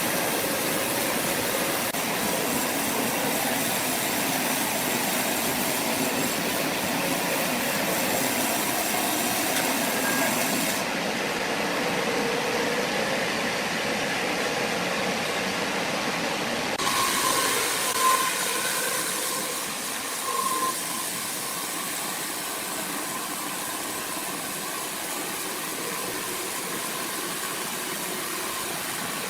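Sawmill machinery running with a steady mechanical noise; the sound changes abruptly about eleven seconds in and again a few seconds later, then runs a little quieter.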